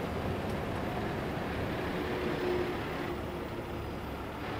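Heavy tow truck's diesel engine running steadily, a continuous low rumble, while its boom holds and lifts a burnt trailer section; a faint steady tone rises out of the rumble about halfway through.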